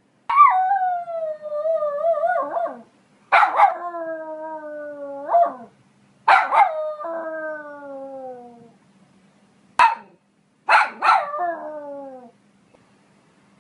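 Poodle barking and howling: four drawn-out howls, most sliding down in pitch and each opening with a sharp bark, with a single short bark between the last two.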